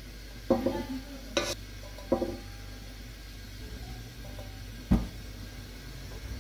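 A metal utensil knocking against a cooking pan while stirring: four short clanks with a brief ring, three in the first two seconds and one about five seconds in, over a low steady hum.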